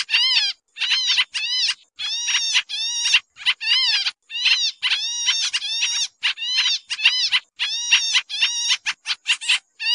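Pied triller (kapasan kemiri) calling noisily in a rapid, unbroken series of notes, about two a second, some in quick pairs. Each note arches up then down in pitch. This is the busy call used as a bird-catcher's lure recording.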